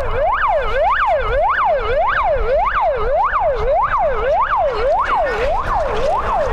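Emergency vehicle siren sounding a fast yelp, each wail sweeping up and down a little under twice a second, over a low rumble.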